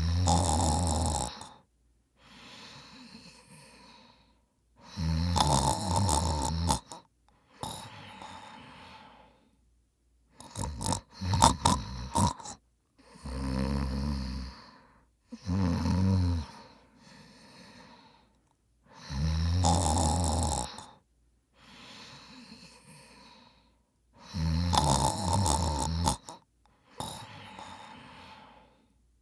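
A man snoring in his sleep: loud rasping snores of a second or two each come every few seconds, with softer breaths between them.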